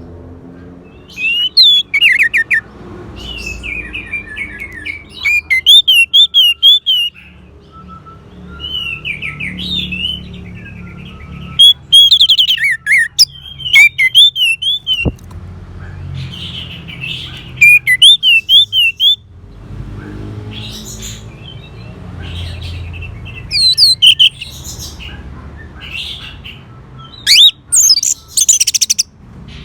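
Orange-headed thrush singing: loud, varied phrases of fast rising and falling whistles and trills, a new phrase every couple of seconds, over a low background hum.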